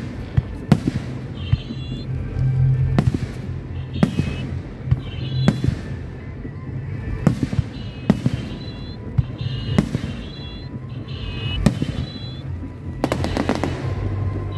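Aerial firework shells bursting: a dozen or so sharp bangs spread at uneven intervals, with a burst of dense crackling near the end.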